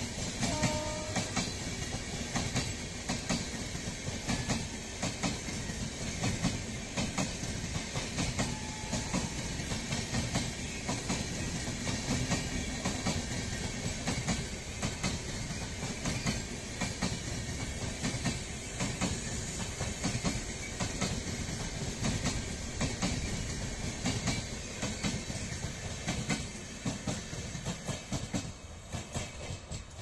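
Rajdhani Express passenger coaches passing at speed: a steady rumble of wheels on the rails with fast clickety-clack over the rail joints, fading near the end as the last car goes by.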